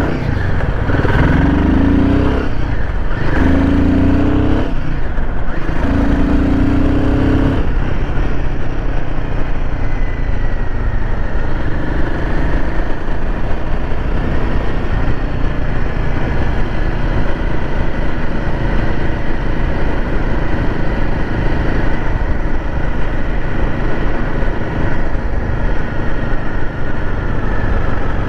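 Royal Enfield Himalayan 450's single-cylinder engine pulling hard through the gears, its pitch rising and dropping at each of three or four upshifts over the first several seconds. It then settles into a steady cruise with constant wind and road noise.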